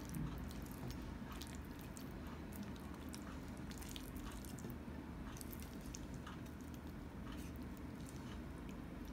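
Faint wet squishing and soft clicks of saucy chilli paneer sliding off a pan into a ceramic bowl, pushed along by a spatula, over a steady low hum.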